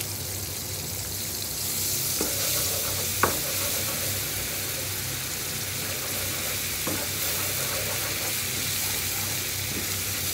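Melted butter sizzling in a frying pan while flour is stirred in with a wooden spatula to make a roux for white sauce. The steady sizzle is broken by a few sharp knocks of the spatula against the pan, the loudest about three seconds in.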